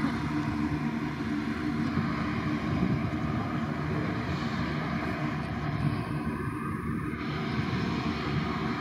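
Saab 2000's Rolls-Royce AE 2100 turboprop engines idling, a steady drone with several low, even tones from the turning propellers.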